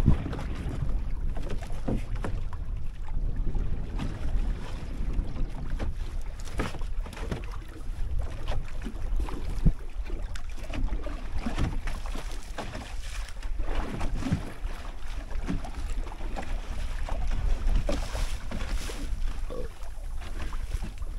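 Wind buffeting the microphone over open water, with water sloshing and scattered splashes and knocks; one sharp knock stands out about ten seconds in.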